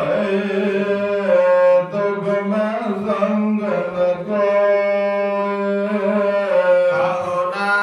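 A man singing Sikh kirtan, drawing out a long melismatic line of a Gurbani shalok with held, sliding notes over a steady low drone.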